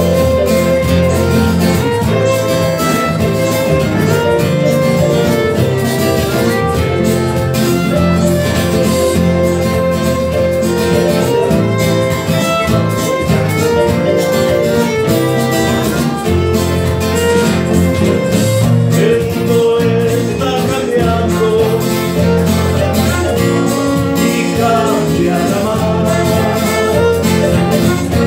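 Live instrumental break: a violin plays the melody over strummed acoustic guitar, with a steady bass line underneath.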